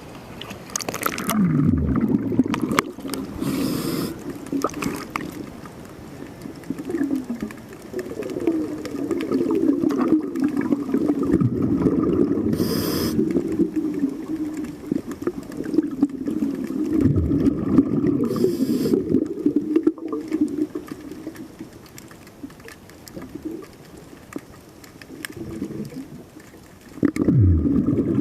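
A scuba diver breathing through a regulator underwater: brief hisses of inhalation a few times, with the low bubbling gurgle of exhaled air between them.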